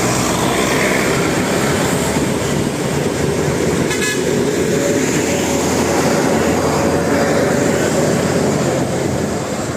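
Bus telolet horn sounding over road and traffic noise.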